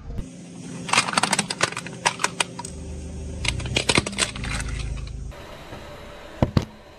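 A car tyre rolling over and crushing small hard objects: a quick run of sharp cracks, clicks and crunches over the low rumble of the car. After a cut, two more sharp cracks come near the end.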